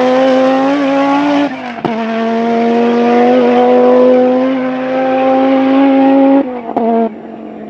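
Audi Quattro S1 E2's turbocharged 2.1-litre inline-five running at high revs under full throttle. About a second and a half in the revs dip briefly, as at a gear change, and then hold high. Near the end the engine drops off with a couple of short blips.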